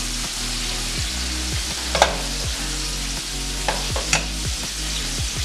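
Chicken deep-frying in a pot of hot oil, a steady sizzle throughout. A few sharp clinks of metal utensils cut through it, the loudest about two seconds in and two more close together near four seconds.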